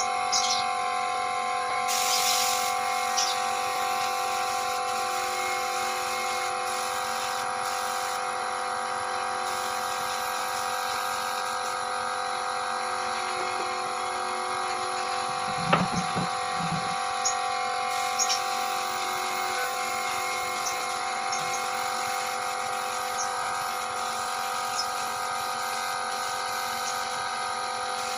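Air compressor running steadily with a constant whine, supplying air to a spray gun used for spraying clear-coat finish. A brief cluster of low knocks comes about halfway through.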